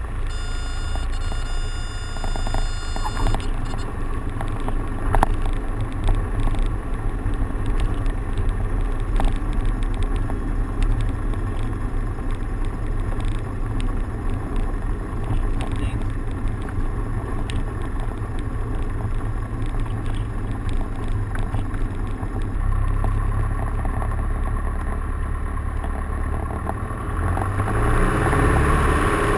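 Grumman AA-5B Tiger's four-cylinder Lycoming O-360 engine idling with a steady low drone through the landing rollout and taxi. Near the end it is opened up to takeoff power, growing louder and rising in pitch. A steady high tone sounds for a couple of seconds near the start.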